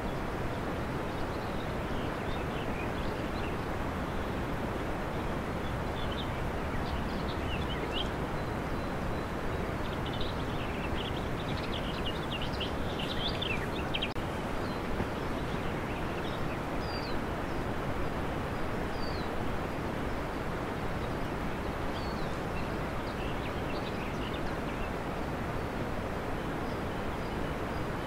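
A steady hiss of noise, with short, faint high chirps scattered over it, most of them between about ten and fifteen seconds in.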